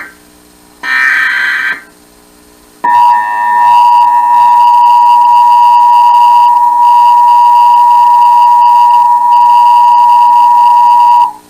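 Emergency Alert System broadcast tones. First comes a short, warbling data burst from the digital SAME header, lasting about a second. After a second of silence, the two-tone attention signal (853 and 960 Hz together) sounds loud and steady for about eight and a half seconds, then cuts off abruptly. The tones signal that an emergency alert message follows, here a required monthly test.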